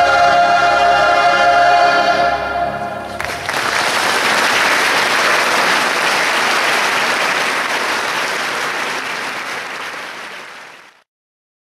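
A gospel choir holds its last chord, which breaks off about three seconds in, and the audience breaks into applause. The applause gradually fades and then cuts off suddenly near the end.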